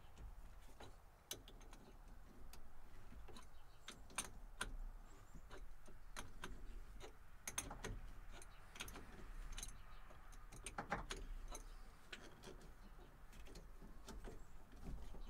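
Irregular metallic clicks and clinks of hand tools, a wrench and sockets working at a truck's battery terminals.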